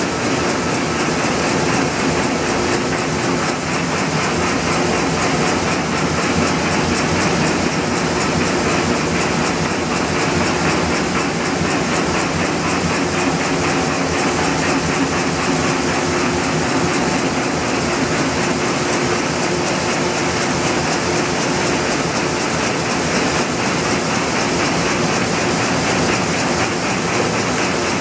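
Komori Lithrone sheet-fed offset printing press running: a loud, steady mechanical clatter with a fast, even rhythm.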